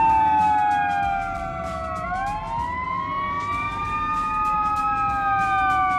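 Sirens of several fire trucks passing, in a slow wail that sweeps down, back up and down again, with two sirens sounding out of step with each other.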